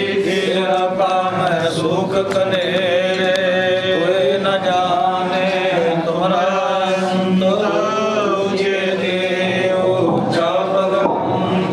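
Devotional chanting: voices holding a slow, drawn-out melody without a break, over a steady low hum.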